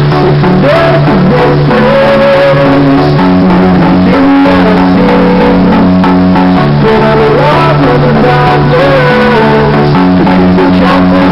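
Loud song: guitar over held low notes that shift every second or two, with a wavering melody line above.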